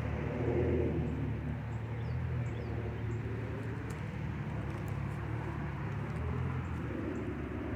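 Steady low outdoor rumble, with a few faint high chirps about two and a half seconds in.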